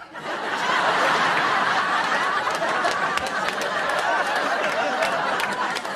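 Sitcom audience laughter, breaking out suddenly and held for several seconds.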